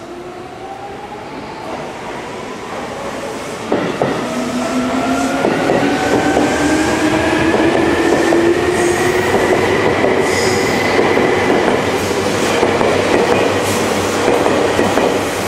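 Seibu 2000-series electric train pulling away from the platform, its traction motors whining in several tones that climb steadily in pitch as it accelerates. There is a sharp knock about four seconds in, and the wheels clatter over the rail joints as it picks up speed.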